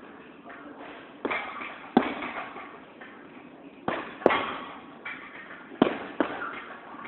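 Gloved punches landing on a hanging heavy punching bag: six sharp thuds in three pairs, each echoing briefly in the large hall.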